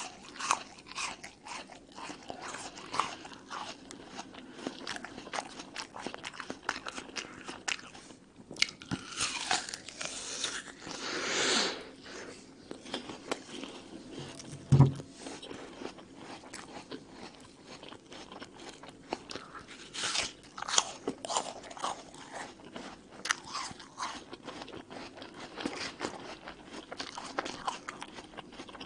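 Close-miked crunching of a raw red apple: crisp bites and chewing with many sharp crackles. About halfway through comes a single low thump, the loudest moment.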